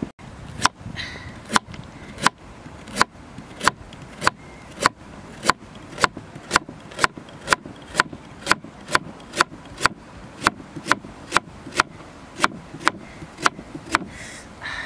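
Large kitchen knife slicing a carrot into rounds on a thick wooden chopping board: a steady series of sharp knocks as the blade strikes the wood, a little slower at first, then about two a second.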